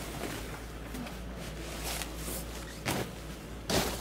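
Rustling and crinkling of a foil-backed ground mat and a fabric blanket being spread out on a tent floor, with two short thumps about three seconds in and near the end as the blanket is flapped down.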